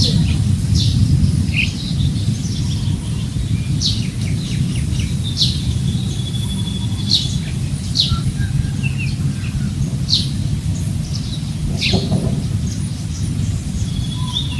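Steady low wind noise over the microphone, with birds calling: short, sharp, downward-sweeping chirps about every second, and a high trill near the end.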